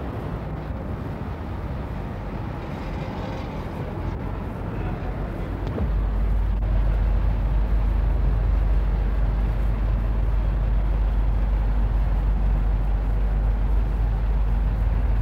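City street ambience: a steady wash of traffic noise. About six seconds in it steps up to a louder, steady low rumble that holds on.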